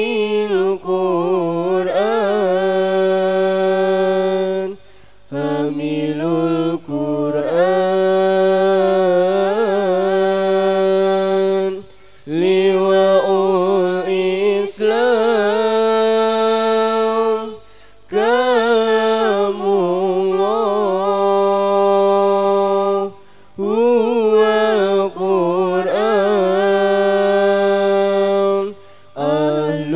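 A young woman's solo voice chanting Arabic verses into a microphone in a slow, melodic, unaccompanied style. Long held notes with wavering ornaments are broken by short pauses for breath about every five or six seconds.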